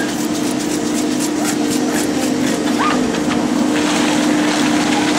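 Four-seat chairlift running: a steady hum from the lift machinery with scattered clicks and rattles from the chairs and haul rope.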